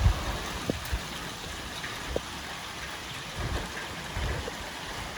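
Light rain falling, with a few drop ticks and low rumbles of wind gusting against the microphone now and then.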